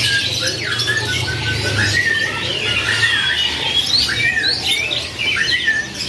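A crowd of canaries chirping and calling over one another, many short, quick calls overlapping without a break.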